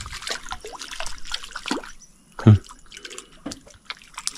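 Water dripping and splashing as a red piranha is brought in on a handline, with many small sharp drips and crackles over the first two seconds. A single loud thump comes about two and a half seconds in, then scattered faint drips.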